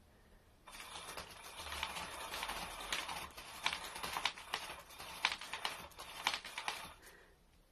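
A cat pawing and scratching at the fabric cover of an electronic 'Catch Me If You Can' cat toy: scratchy rustling with many quick clicks. It starts about a second in and stops shortly before the end.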